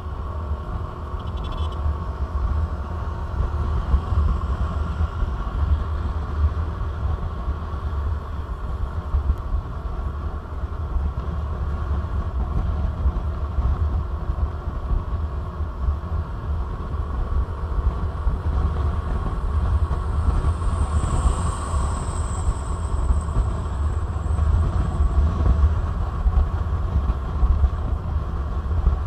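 Wind rumble and the drone of the engine and road picked up by a motorcycle-mounted camera while riding at speed, with a brief rise in hiss about two-thirds of the way through.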